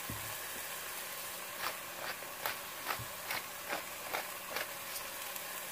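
Ground meat sizzling softly in a pot, with light irregular clicks about two a second as salt and pepper are added.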